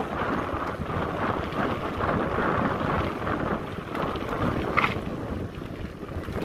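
Wind buffeting the microphone of a mountain bike moving at speed, over the rumble of its tyres rolling on a dirt and gravel path and the bike rattling. About five seconds in, a short higher-pitched sound rises above it.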